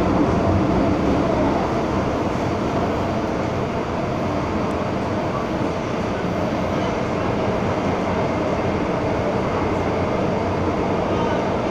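MTR M-Train subway car running through a tunnel, heard from inside the car: a steady rumble of wheels and running gear.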